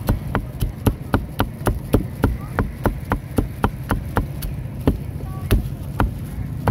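A knife chopping grilled pig head meat on a wooden chopping block in quick, even strokes, about three to four a second, slowing and spacing out near the end with one heavier chop.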